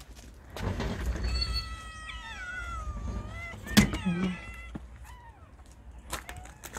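Several cats meowing in long, wavering calls that overlap, with a sharp knock about four seconds in. Footsteps crunch on gravel near the end.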